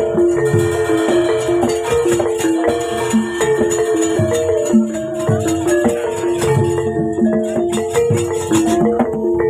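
Javanese gamelan music accompanying a wayang kulit shadow-puppet play: pitched metal keys repeat a short melody over lower notes, with quick clicking percussion on top.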